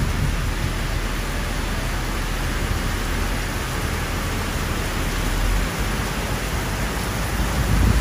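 Heavy downpour: a steady hiss of rain pouring onto the ground and paving, with a low rumble underneath that grows near the end.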